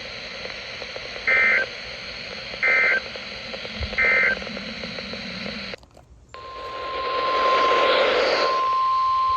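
Weather radio alert data signal: three short buzzy warbling bursts about 1.3 seconds apart, the end-of-message code that closes a warning. After a brief dropout, a steady loud 1050 Hz warning alarm tone starts about six seconds in over radio hiss, announcing the next warning.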